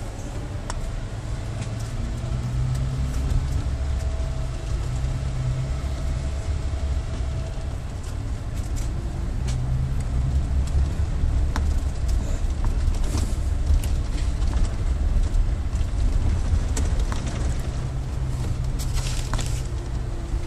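Scania K440 double-decker coach's diesel engine running under way, heard from inside the passenger cabin as a steady low drone, with scattered light rattles and clicks from the body. A brief hiss comes near the end.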